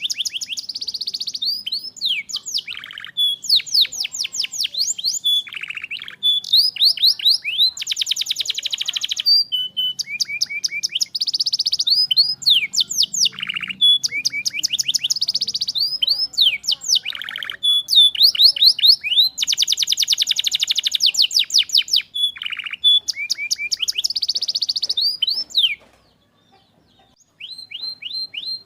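Domestic canary singing a long, fast song of rolling trills and rapidly repeated notes, breaking off briefly near the end before starting again.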